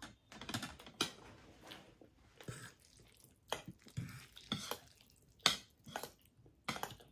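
Metal forks and spoons clinking and scraping against ceramic plates as food is served and picked up, in irregular short clicks with the loudest clink about five and a half seconds in.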